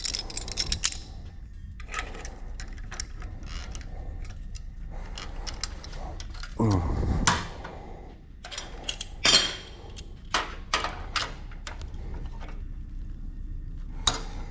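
Steel jig parts, spacers and clamps being handled and fitted: a run of sharp clicks and metal-on-metal knocks, with a short rasping sound about halfway through.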